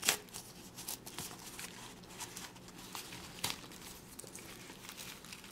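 Newspaper rustling and crinkling as hands unwrap a potted plant, with a few sharper crackles: one right at the start and others about a second and three and a half seconds in.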